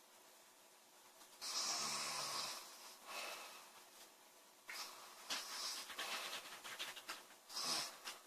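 A young woman snoring in her sleep: a loud, buzzing snore about a second and a half in, then softer breaths with a fluttering rattle, and another loud breath near the end.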